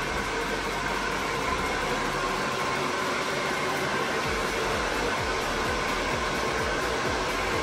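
Handheld hair dryer blowing steadily on long, freshly rinsed hair: a constant rush of air with a steady motor whine over it.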